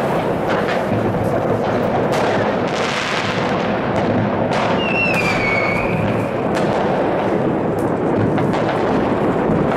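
Many fireworks and firecrackers going off across a city: a dense, continuous crackle of bangs. About five seconds in comes a whistle that falls slightly in pitch.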